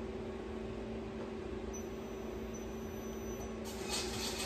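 Tormach 1100MX CNC mill running its spindle slowly at 500 RPM for warm-up: a steady machine hum, with a faint thin squeak for about two seconds in the middle and a rise in hiss near the end.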